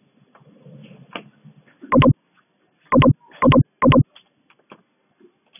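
Computer mouse button clicked four times, each a sharp press-and-release pair: one about two seconds in, then three more about half a second apart near the middle, with faint ticks between.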